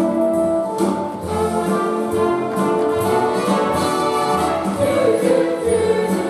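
Orchestral show music with brass, a musical-theatre score played during the stage show; a strong wavering held note comes in about five seconds in.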